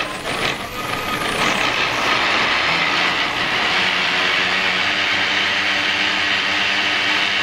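Pedal-powered blender running, its base spun by friction against the bicycle's drive wheel as the blades chop fruit into a smoothie. The steady whir rises in pitch over the first couple of seconds as the pedalling gets it up to speed, then holds steady.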